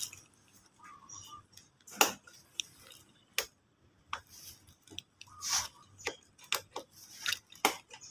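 Scattered light clicks and soft rustles, irregular and a second or so apart, typical of a hand-held phone being handled. No engine is running.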